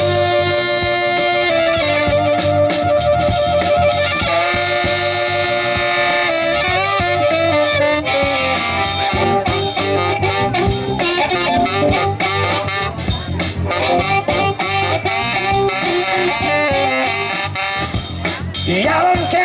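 A live blues band plays an instrumental passage with guitars, harmonica and tenor saxophone over bass and drums. Long held notes carry the first eight seconds or so, then give way to a busier run of shorter notes.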